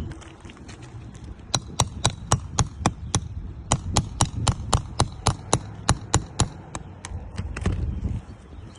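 Sharp taps, about four a second, in two quick runs, then a few scattered ones near the end: tool strikes while roofing nails are worked loose from shingles.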